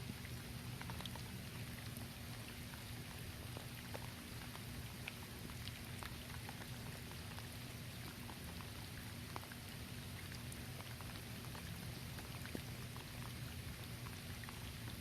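Steady light rain falling on leaves, a constant patter with scattered distinct drop ticks.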